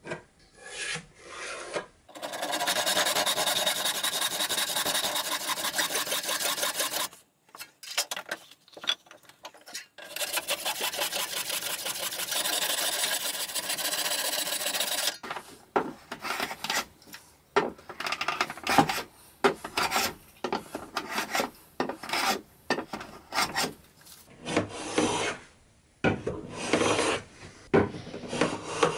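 Handsaw ripping a taper along a cherry chair leg in fast, steady strokes: two long runs with a short pause between. From about halfway through come separate strokes of a metal bench plane shaving the sawn taper smooth.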